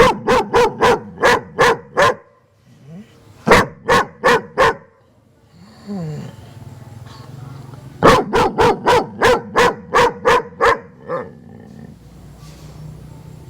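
A dog barking in quick runs of sharp barks: about seven in the first two seconds, four more a little later, then a longer run of about ten starting about eight seconds in.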